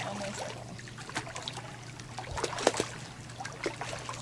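Swimming-pool water splashing and trickling in small irregular sloshes, busiest about two and a half seconds in, over a steady low hum.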